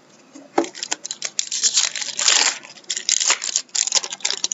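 A hockey card pack wrapper being torn open and crinkled, a dense irregular crackling starting about half a second in.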